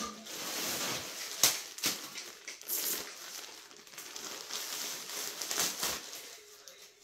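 Plastic packaging bag rustling and crinkling as it is handled and opened, with a few sharper crackles along the way.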